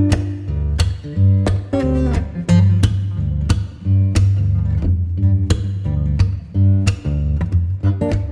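Background music: a guitar tune with plucked and strummed notes over a steady bass line and a regular beat.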